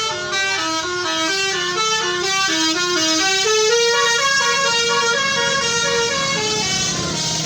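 Tour bus's telolet (basuri) multi-tone musical horn playing a fast melody of short stepping notes, rising into a higher phrase about halfway through.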